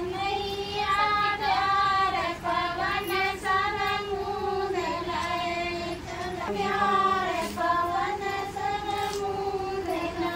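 A group of women singing a folk song together in high voices, holding long wavering notes with only brief breaks.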